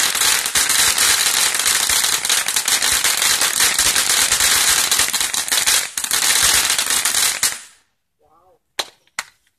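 Ground fountain firework spraying sparks with a loud, dense crackle and hiss. It cuts off suddenly about three quarters of the way through as the fountain burns out, followed by two sharp pops near the end.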